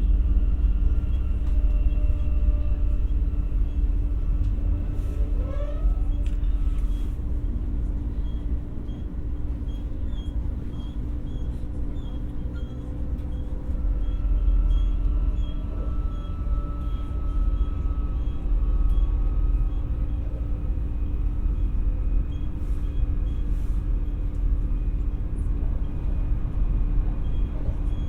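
Cabin running sound of an X60 electric multiple unit (Alstom Coradia Nordic) on the move: a steady low rumble of wheels on rail, with faint electric traction whine tones over it. A short rising whine about five seconds in.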